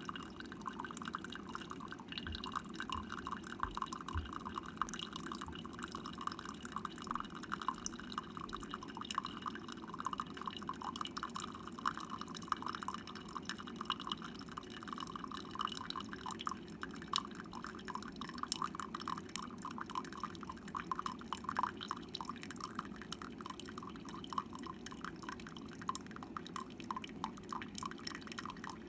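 Instant Solo single-serve coffee maker brewing: a steady low hum under a continuous fine trickle and patter of coffee dripping into the cup.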